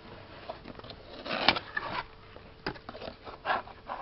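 Cardboard phone box and its paper packing being handled and opened by hand: irregular rustles, scrapes and light taps, the loudest about a second and a half in.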